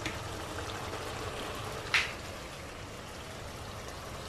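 Tomato sauce with salt cod simmering in a frying pan, a steady bubbling hiss, with one sharp click about two seconds in.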